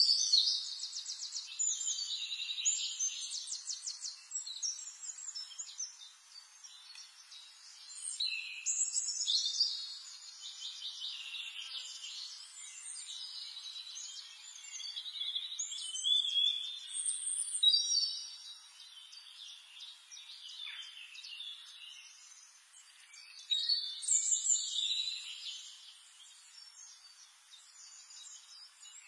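Birds chirping and trilling, with quick repeated notes and short sweeping calls, coming in loud spells every several seconds.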